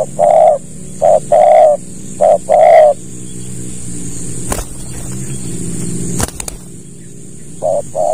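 Spotted dove (tekukur) cooing: three quick phrases in the first three seconds, each a short note followed by a longer one, then one more phrase near the end. A steady hum and a few faint clicks lie beneath.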